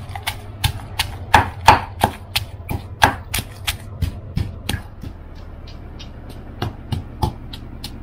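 Pestle pounding fresh chillies, shallots, garlic, lemongrass and krachai into red curry paste in a mortar. The strikes come steadily, about three a second, and grow softer about five seconds in.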